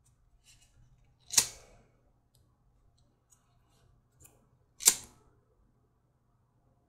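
A disposable flint lighter struck twice, two sharp clicks about three and a half seconds apart, to melt back the ends of the holster's stitching thread.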